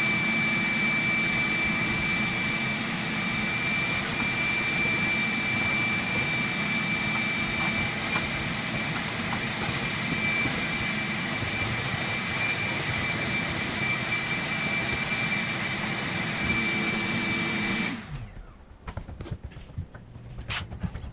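Vacuum cleaner running steadily with a thin high whine, switched off about eighteen seconds in and winding down quickly, followed by a few light clicks.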